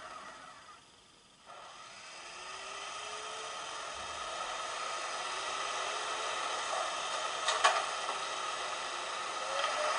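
The sound decoder of a Brawa E95 06 model electric locomotive plays standstill locomotive sounds. About a second and a half in, a steady hum starts up and slowly grows, with slow rising whines. A sharp double click a little after seven and a half seconds is the loudest moment.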